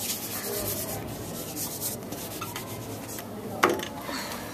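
Whiteboard eraser rubbing across a whiteboard in quick back-and-forth strokes. A single sharp knock comes about three and a half seconds in.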